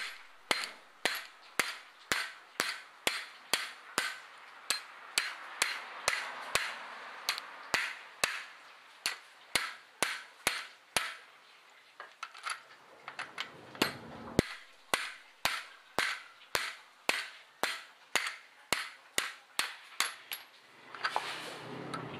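Hammer blows on metal, evenly paced at about two a second, with a short break a little after the middle: knocking on part of a 15 hp Yamaha outboard motor during a stripped-thread repair.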